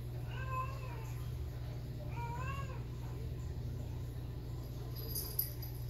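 An animal calling twice: two short pitched cries that rise and then fall, about two seconds apart, over a steady low hum. A brief click near the end.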